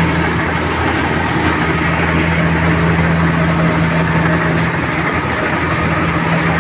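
A motor running steadily, with a constant low hum under a rushing noise.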